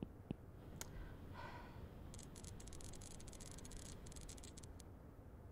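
Faint dry scratching of a pen writing on paper for about two and a half seconds in the middle, over quiet room tone, with a few soft clicks in the first second.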